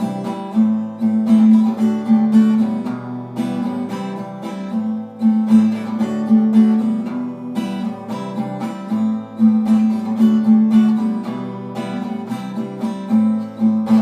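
Instrumental outro of a song: a strummed string accompaniment playing in a steady rhythm, with no singing.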